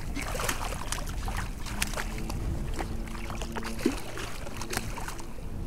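Water splashing and crackling as a hooked speckled trout thrashes at the surface while it is reeled in, over a steady low rumble of wind on the microphone. A faint low hum comes and goes in the middle.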